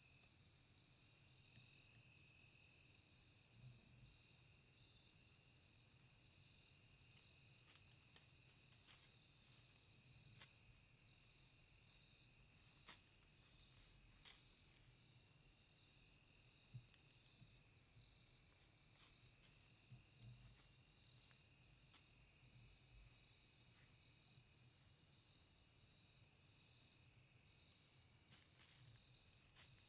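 Faint, steady chorus of insects: a continuous high trill with a fainter, lower one beneath it, and a few soft ticks now and then.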